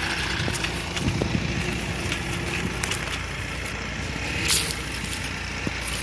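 Tractor engine running steadily under the load of ploughing, a low even rumble, with a short rustle about four and a half seconds in.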